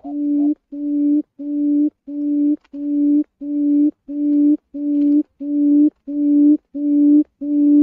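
Quail (chim cút) lure call for trapping: a low hooting note repeated evenly about twice a second, each note swelling in loudness and then cutting off.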